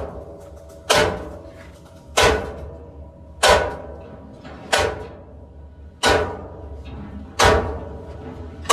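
Heavy hammer blows on a large metal V-belt pulley mounted on a silage machine. Six evenly spaced strikes, about one every 1.25 s, each leaving a brief metallic ring.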